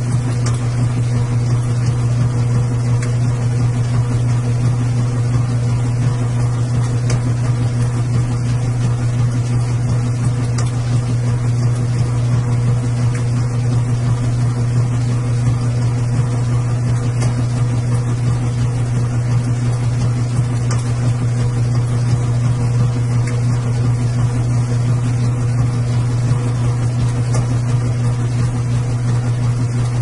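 Washing machine running with a steady low hum.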